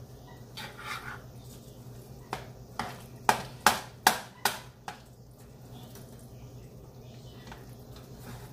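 Kitchen utensil knocking and clattering against a pot: scattered sharp knocks, then a quick run of four or five about three to five seconds in, over a steady low hum.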